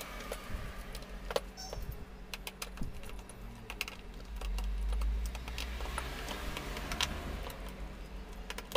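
Scattered small clicks and rattles of a screwdriver and wire ends as test-lamp wires are loosened and pulled from the contactor screw terminals of a star-delta starter panel, with a low rumble of handling about halfway through.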